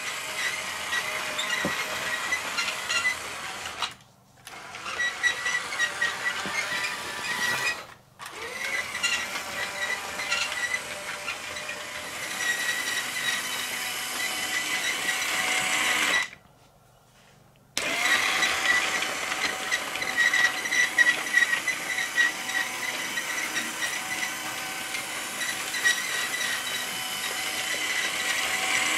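Toy LEGO train's battery motor whirring steadily, with the plastic wheels rattling on the plastic track. The sound cuts out abruptly for moments about 4 and 8 seconds in, and for over a second about two thirds of the way through.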